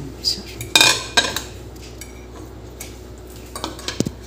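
Metal fork clinking and scraping against a glass plate while pieces of halwa are lifted off it. The loudest clinks come about a second in, with a few lighter taps near the end.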